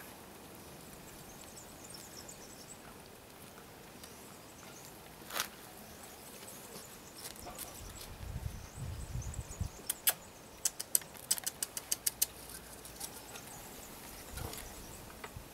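Quiet outdoor background around a Bernese mountain dog puppy taking treats from a hand on stone paving: a single sharp click about five seconds in, a low rumble, then a quick run of sharp clicks and taps for about two seconds past the middle.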